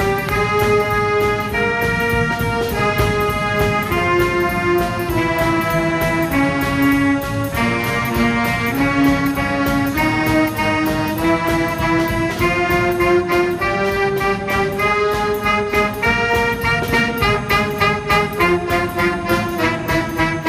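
Brass band music: a melody of held brass notes over a steady percussion beat, with the notes coming quicker near the end.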